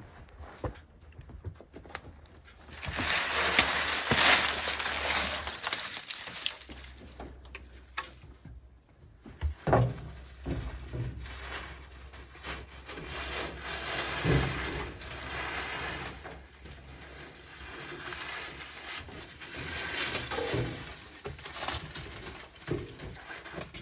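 Work sounds of clanks, knocks and rustling, over a low steady engine hum that cuts in and out.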